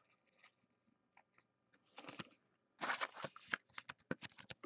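Crinkly rustling and quick crackling clicks of a plastic card sleeve and top loader as a trading card is slid into them. A brief rustle comes about two seconds in, and the dense crackling starts just before three seconds in.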